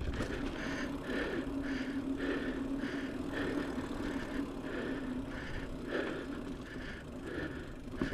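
Mountain bike riding along a dirt trail: a steady rumble of tyres and rattling bike parts, with a regular pulse about twice a second.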